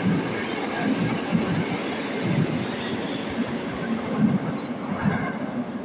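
Metro train pulling out of the station, its wheels and running gear rumbling as the last cars pass. The sound fades near the end as the train goes into the tunnel.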